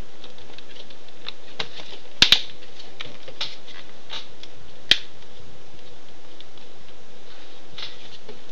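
Plastic screen bezel of an Acer Aspire One netbook being pressed back onto the lid, its clips snapping into place: a scatter of sharp clicks, the loudest a quick pair about two seconds in and a single one about five seconds in, over a steady hiss. The clicks thin out near the end as the bezel seats fully.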